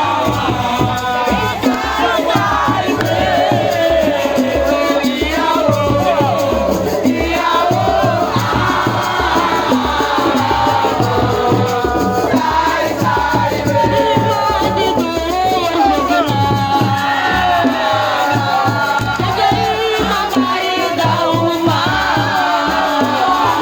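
A crowd singing and shouting together over loud, fast drumming.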